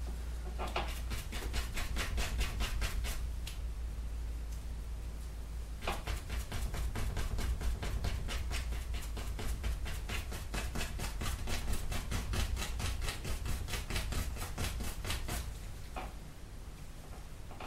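Paintbrush scrubbing oil paint onto a stretched canvas in quick back-and-forth strokes, about five a second, easing off for a couple of seconds early on and stopping near the end.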